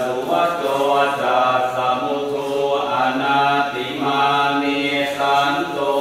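Thai Buddhist chanting in Pali: a steady recitation of held syllables at a near-constant pitch, with no pause.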